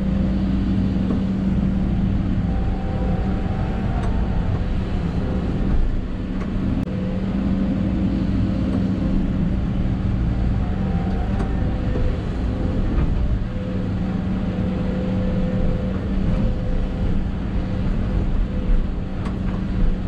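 Hidromek 220 LC hydraulic excavator working under load while digging and loading a truck, heard from inside the cab: a steady engine drone with a higher whine that comes and goes.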